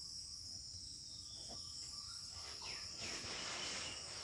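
Crickets trilling steadily in the background. In the second half a pen scratches faintly across paper in short strokes as a word is written.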